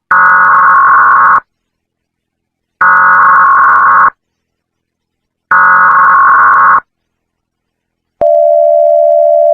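Emergency Alert System header: three loud bursts of warbling digital data tones, each just over a second long with a pause between them. About eight seconds in, a steady, loud attention tone begins, the signal that an emergency message is about to be broadcast.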